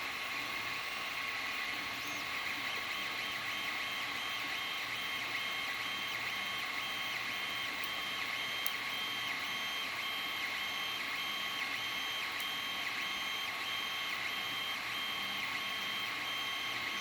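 Creality Ender-3 3D printer running a print: a steady fan hum under high whining tones from the stepper motors, one of which pulses on and off in short regular dashes.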